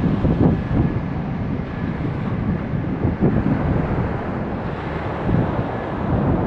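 Wind buffeting the microphone in uneven gusts, with a faint steady high whine underneath.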